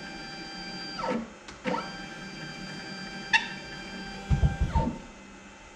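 X-Carve CNC router's stepper motors whining as the router carriage is jogged down in short moves, the whine falling in pitch each time a move stops. A sharp click a little past three seconds in, and a short low rumble just before the last move ends.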